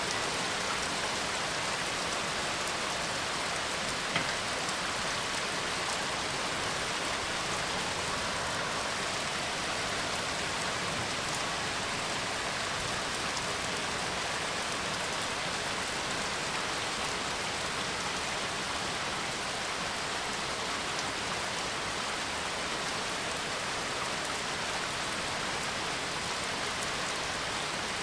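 Steady rain, an even hiss of drops falling on a surface, with one faint click about four seconds in.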